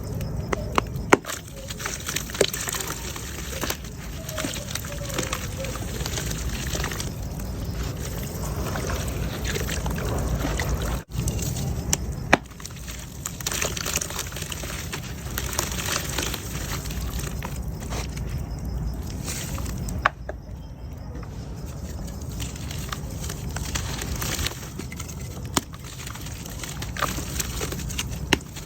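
Wet mud crumbling into water: steady sloshing and trickling, with many sharp crackles and pops from the breaking pieces.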